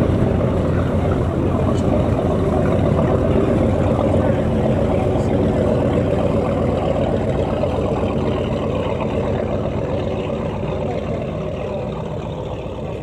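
A steady, low engine rumble with outdoor noise over it, fading slowly toward the end.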